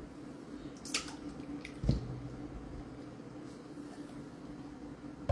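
Thick buttermilk poured from a small cup into a stainless steel mixing bowl of cooking oil: a few wet splats and one heavier plop about two seconds in.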